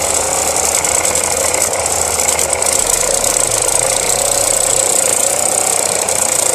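Homemade electric coconut grater with a DIY brushless motor, its spinning toothed grater head scraping the flesh of a half coconut with a steady rasping whir and rattle.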